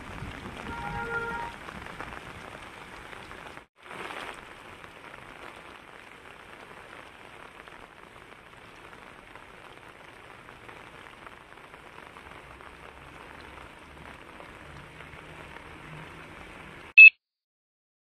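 Steady rain falling, with a brief pitched tone about a second in and a short break about four seconds in. A single short, loud, high beep sounds near the end, and then the sound cuts off.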